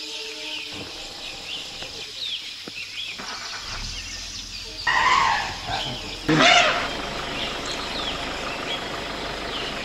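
Asian elephant trumpeting: two short, loud calls, about five and about six and a half seconds in, the second the louder, over faint bird chirps.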